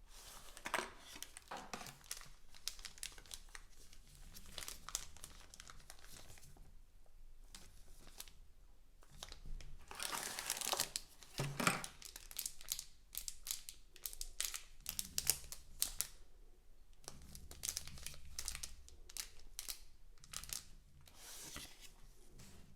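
Product packaging being handled and opened by hand: irregular bursts of crinkling with some tearing and small clicks, the loudest stretch a little before halfway.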